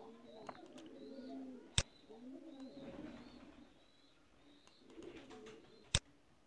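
Faint repeated low bird calls in the background, with two sharp mouse clicks, one about two seconds in and one near the end.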